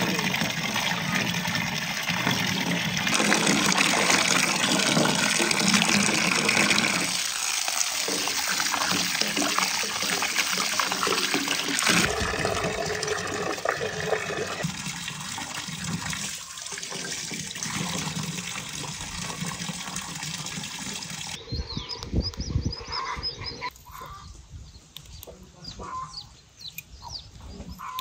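Water running and splashing steadily, with a few abrupt shifts. About three-quarters in it cuts to a much quieter outdoor scene with birds calling.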